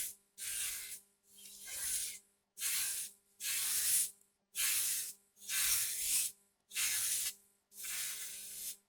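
Indian broom sweeping a floor in brisk, even strokes, about one swish a second, each a short brushing hiss with a brief gap between.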